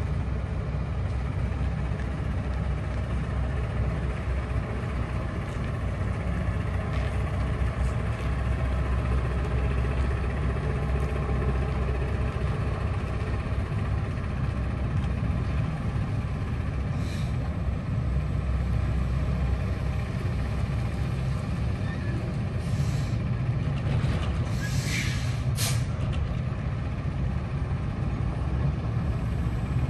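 Semi truck's diesel engine running steadily on the road, a low drone throughout. A few short hisses of air break through in the last third, typical of the truck's air brakes.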